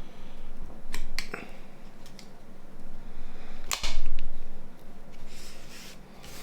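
Small sharp clicks and taps of a phone's plastic parts being pressed and worked with a small tool. There are a few clicks about a second in, then one louder snap with a low thud near four seconds.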